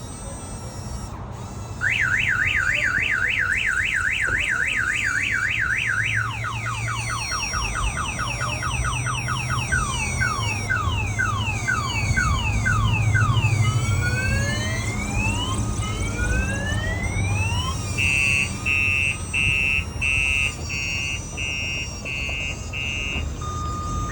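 Aftermarket two-way car alarm siren sounding, starting about two seconds in and cycling through its tones: a fast warble, then quick falling chirps, then slower rising whoops, then a string of short steady beeps near the end.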